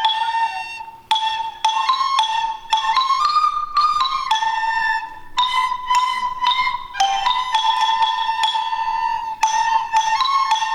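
Instrumental music: a high melody played as a string of separate notes, with a brief pause about a second in.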